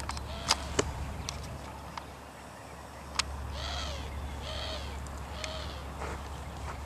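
An animal calling: three short calls that rise and fall, about a second apart, starting about halfway through. They sit over a low steady hum, with a few sharp clicks before them.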